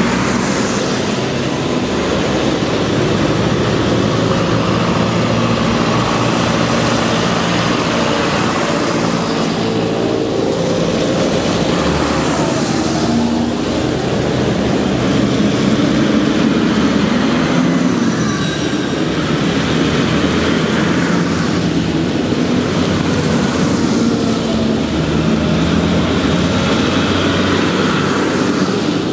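Several tractor engines running as tractors move off and pass, a loud continuous din of overlapping engines whose pitches shift as they come and go.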